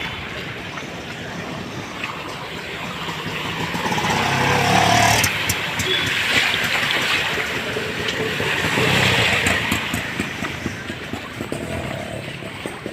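Motor vehicles passing along a rain-flooded street, their engines and the hiss of tyres through water growing louder and fading away twice.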